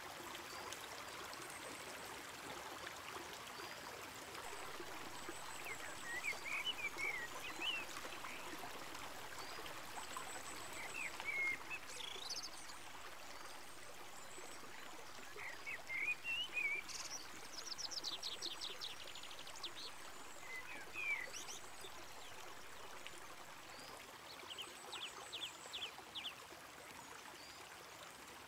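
Mountain river rushing over rocks in a steady hiss. Songbirds call over it in short chirping phrases every few seconds, with a rapid high trill twice, about two-thirds of the way in and near the end.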